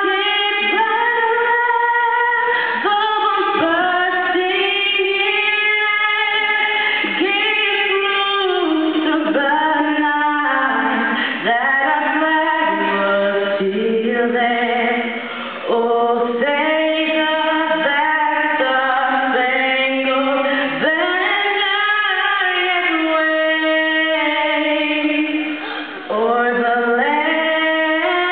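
A girl singing the anthem solo and unaccompanied into a handheld microphone, holding long notes and gliding between them, with a few short breaks for breath.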